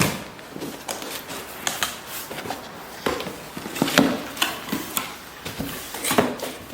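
A cardboard box and its packaging being opened and handled by hand: irregular rustling and scraping, with scattered knocks and clicks.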